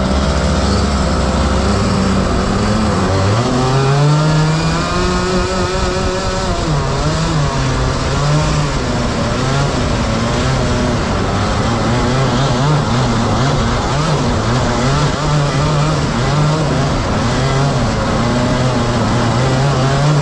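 Two Rotax Max 125 cc two-stroke kart engines running together. They tick over steadily for about three seconds, then rev up as the kart pulls away, and the note keeps rising and falling with the throttle.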